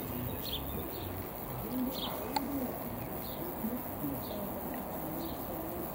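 Birds calling in the background: short, low rising-and-falling notes repeating every half second or so, with a few faint higher chirps, over a steady hiss.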